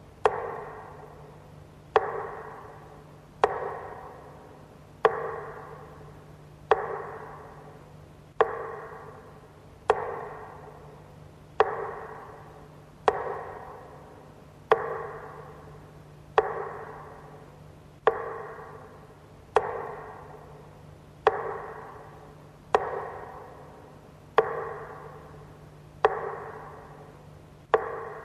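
A single pitched note struck at a slow, even pace, about once every one and a half seconds. Each strike rings out and fades before the next, like a slow toll.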